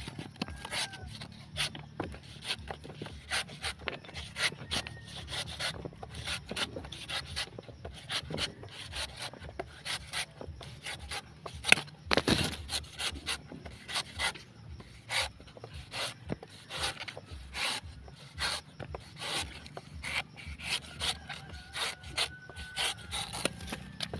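Machete blade shaving the husk off a young green coconut: many quick, irregular scraping and slicing strokes, a few each second, with one louder chop about halfway through.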